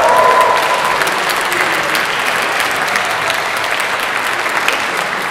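Audience applauding: dense clapping that slowly dies down toward the end.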